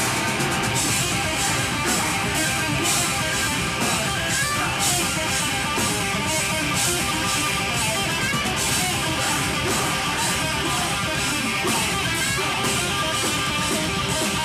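A metalcore band playing live at full volume: distorted electric guitars, bass and drums with a steady beat of crashing cymbals.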